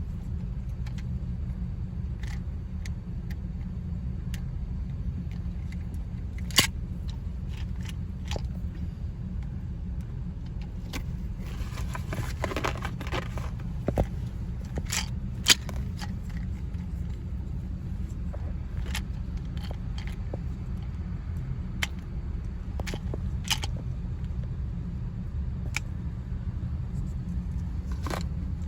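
Scattered sharp metal clicks and a brief rattle of screwdriver bits being pushed into and pulled out of a Klein 14-in-1 multi-bit screwdriver, over a steady low rumble.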